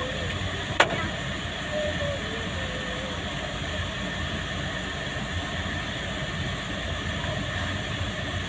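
Steady rumble of a vehicle's engine and road noise heard from inside the cabin, with one sharp click about a second in.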